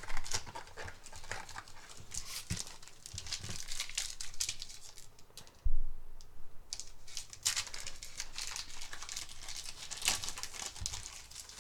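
Foil booster-pack wrappers crinkling and tearing as trading-card packs are ripped open and handled, with a sharp thump a little past halfway.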